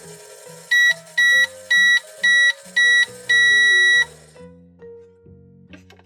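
A microwave's beeper sounds five short beeps and then one longer beep on the same high tone, the signal that the cooking cycle is finished. Children's background music plays underneath.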